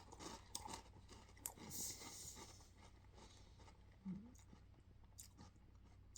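Faint chewing of a mouthful of sweetened corn cereal in milk: soft, scattered crunches and mouth clicks.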